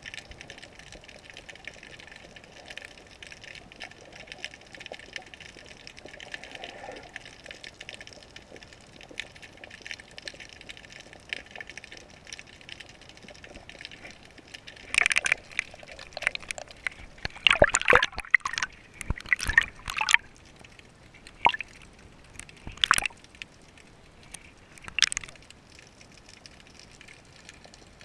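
Underwater sound picked up by a GoPro in its waterproof housing hung on a fishing leader: a steady muffled water hiss. About halfway through comes a flurry of sharp clicks and knocks, loudest a few seconds later, then tailing off into a few single clicks.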